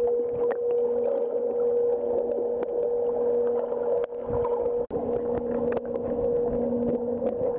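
Underwater sound in a swimming pool, muffled through the camera's waterproof housing: a steady low hum with faint clicks and sloshing, and a brief churn of water and bubbles about four seconds in as a swimmer's hand splashes close to the camera.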